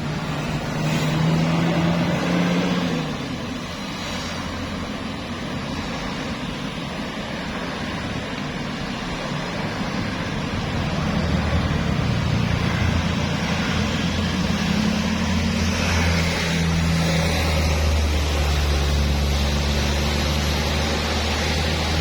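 Engines of heavy tour buses running as they pass. One engine note drops in pitch about three seconds in. From about eleven seconds a deep, steady engine drone builds and stays loud.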